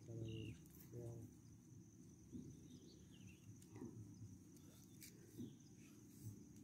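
Near silence: faint outdoor ambience, with a low voice murmuring briefly in the first second and a few faint high chirps.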